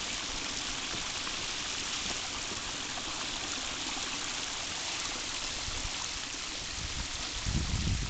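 Small creek running high after rain, a steady rush of flowing water. A low rumble comes in near the end.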